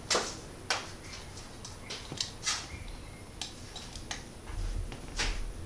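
Scattered light clicks and clinks of hardware and tools being handled, with the sharpest one just after the start and a few more spread through.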